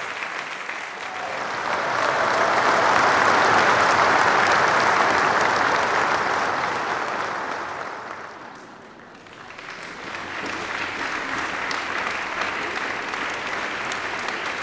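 Crowd applauding: a round of clapping swells to its loudest a few seconds in and dies away by about nine seconds, then a fresh round of applause starts up and continues at a steady level.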